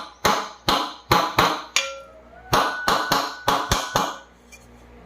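A hammer tapping gently on the aluminium body of a ceiling fan to seat a new bearing: about a dozen sharp metallic knocks in two quick runs, some ringing briefly, stopping about four seconds in.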